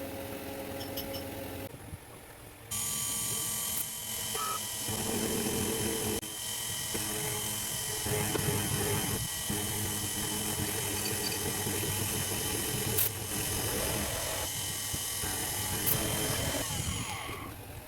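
CNC milling machine running, a steady high-pitched whine that comes up about three seconds in and fades away near the end.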